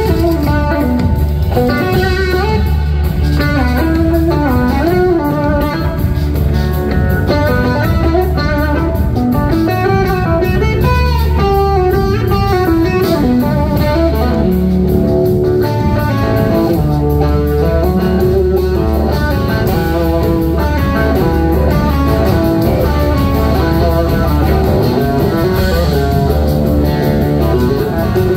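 Live blues-rock band: a semi-hollow electric guitar plays a lead solo whose notes glide and bend between pitches, over bass and drums. The music is loud and steady throughout.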